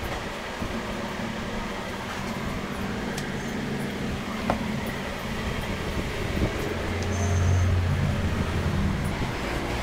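Steady machine hum and rumble, with a louder low hum swelling for a couple of seconds near the end and a couple of faint clicks.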